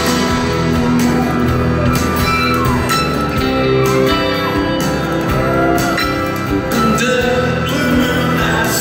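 A rock band playing live, with electric guitar and keyboards holding long sustained chords.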